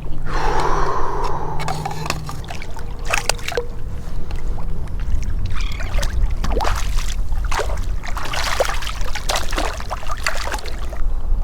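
Water splashing and sloshing around a wading angler: a run of short splashes that come thickest in the second half, over a steady low rumble of wind on the microphone.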